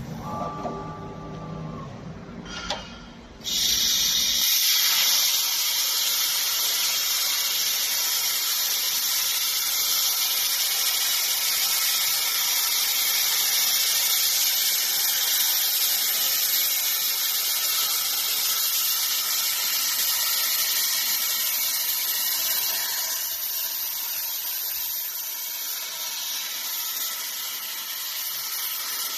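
CNC plasma cutter's torch cutting steel sheet: the plasma arc and its air jet give a loud, steady hiss that starts abruptly a few seconds in and eases slightly near the end. Before it, the drilling head's spindle motor whirs with a few steady tones.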